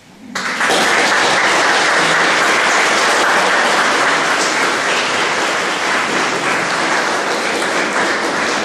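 Audience applauding: the clapping starts suddenly and then stays loud and steady.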